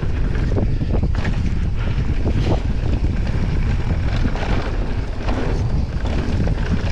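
Heavy wind buffeting the action camera's microphone at speed, a steady low rumble, with scattered short knocks and rattles from the ride.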